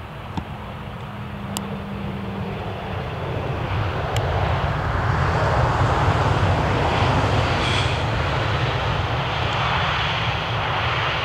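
Airbus A320 jet engines just after touchdown, during the landing rollout. The engine noise swells over about five seconds and then holds loud and steady as reverse thrust is applied.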